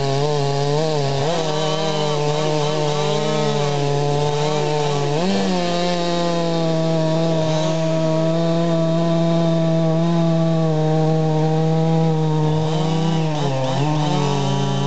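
Freshly rebuilt and ported Husqvarna 385XP two-stroke chainsaw cutting through a large log at full throttle. Its engine pitch sags and recovers under load in the first few seconds, holds steady and high through the middle of the cut, and dips briefly near the end.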